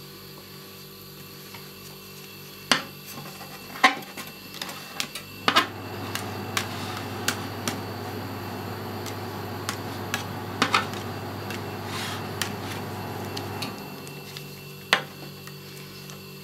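Metal spatulas scraping and tapping on a frozen steel cold plate as a layer of rolled-ice-cream base is smoothed and squared off, with several sharp metal clicks. A steady low hum starts about five seconds in and stops a few seconds before the end.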